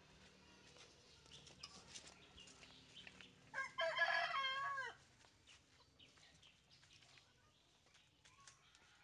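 A rooster crows once, about a second and a half long, the call dropping in pitch at its end. Faint scattered clicks sound around it.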